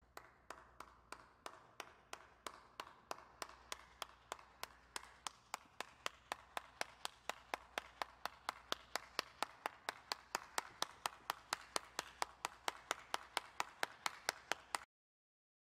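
A single person clapping hands at a steady pace of about four claps a second, growing louder, then stopping suddenly near the end.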